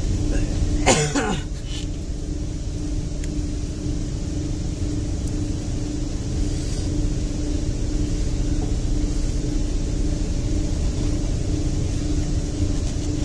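Steady low mechanical rumble with a constant hum, like a running engine or machine, with a brief sound sliding down in pitch about a second in.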